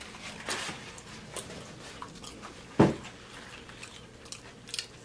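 Faint rustling of a paper towel wiped across a sweaty face, with small scattered clicks and one short, louder sound about three seconds in.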